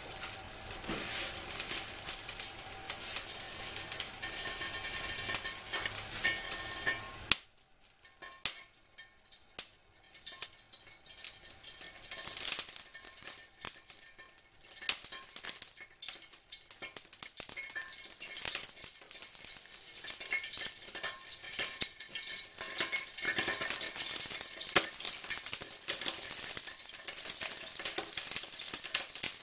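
Water and oil heating in a wok over high heat, crackling and sizzling. About seven seconds in it drops suddenly to scattered pops, which then grow denser into a steady sizzle as the water comes to the boil.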